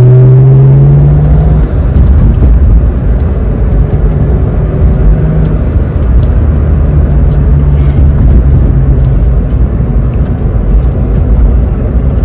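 Turbocharged BMW N55 inline-six in an E46 3 Series, heard from inside the cabin while driving. For the first second and a half the engine note rises under acceleration, then it briefly drops. After that it runs steadily at moderate revs under a low engine and road rumble.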